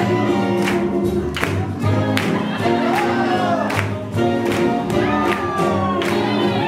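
Swing jazz music with a singer, the drums keeping a steady, even beat under the melody.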